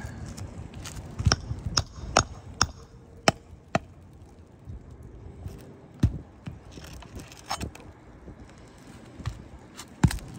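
Hammer striking a snake tool (shingle nail remover) slid under asphalt shingles to drive out roofing nails: a quick run of sharp knocks in the first few seconds, then a few more spaced out.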